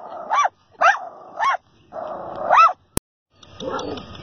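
Small white dog barking in short, high yaps, four in quick succession, with a sharp click about three seconds in and more barking after it. This is the anxious, fear-reactive barking of a nervous dog.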